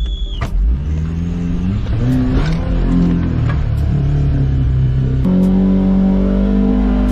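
Maruti Gypsy's four-cylinder petrol engine revving hard as the 4x4 ploughs through deep muddy water, heard from inside the cab. The revs climb and drop several times, then hold high and steady from about five seconds in.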